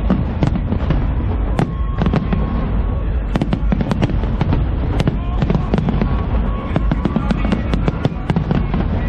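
Large fireworks display: a dense, irregular run of sharp bangs and cracks over a continuous low rumble of bursts.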